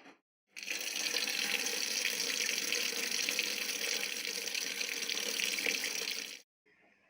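Water running steadily from a tap and splashing into a sink, starting about half a second in and cutting off abruptly near the end.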